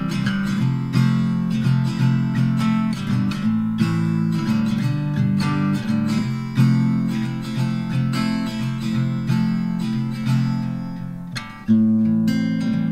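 Background music: an acoustic guitar strummed and picked in a gentle folk style, with a short dip and a fresh strong chord near the end.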